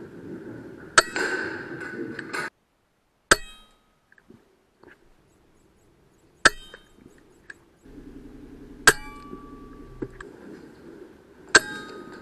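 Five sharp air rifle shots from a .22 PCP AGT Uragan 2, spaced a few seconds apart, each with a brief metallic ring.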